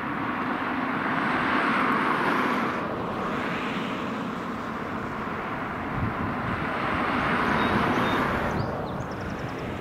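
Cessna 172K Skyhawk's four-cylinder piston engine and propeller on approach, heard from a distance as a steady rushing drone that swells twice as the plane comes closer.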